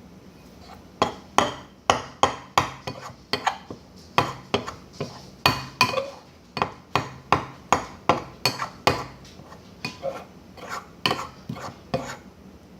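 A utensil stirring a thick mixture in a bowl, knocking against the bowl about three times a second in a steady run of clicks, some with a short ring.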